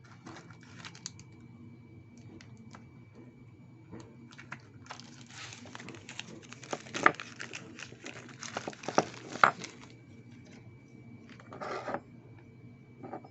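Objects being handled by hand: rustling with scattered small clicks, busiest in the middle with two sharp clicks, over a faint steady high whine.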